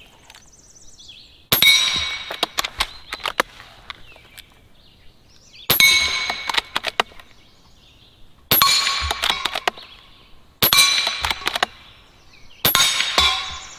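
Five shots from a .30 calibre Umarex Gauntlet PCP air rifle firing pellets, each followed by the ringing clang of the pellet striking the steel plates of a Texas star target, plus a few lighter clinks as the plates swing. The shots come two to four seconds apart.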